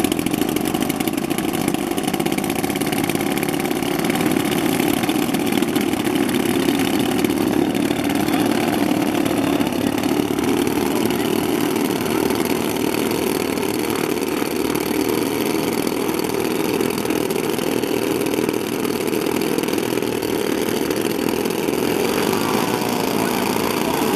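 Large radio-controlled Super Constellation model's 35cc two-stroke petrol engines idling steadily on the ground.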